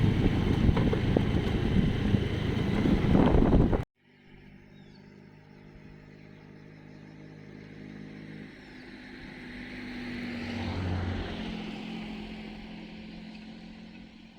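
Loud, jolting rumble of a vehicle on the move, heard from aboard, that cuts off suddenly about four seconds in. After that a much quieter engine hum, with a vehicle sound that swells to a peak about two-thirds of the way through and then fades.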